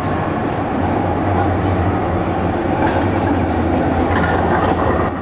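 Electric street tram running along its rails: a steady, loud rumble of wheels and running gear with a low hum.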